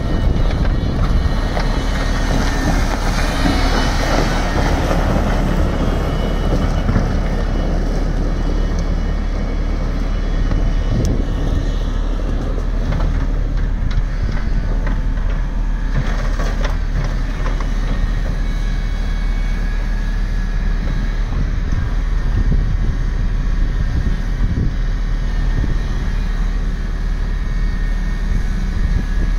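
Takeuchi TB175W wheeled excavator's diesel engine running steadily while the machine drives on gravel and works its boom, a little louder in the first few seconds.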